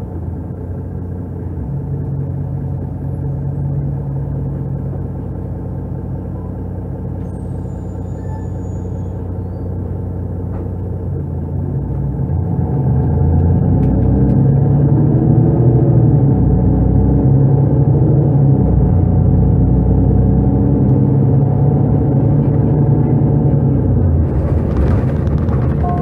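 Mercedes-Benz O530 Citaro city bus from 2005 with a Euro 3 diesel and Voith automatic gearbox, heard from inside the passenger cabin while driving. The engine runs steadily, then pulls louder from about halfway through and holds there. A brief burst of noise comes near the end.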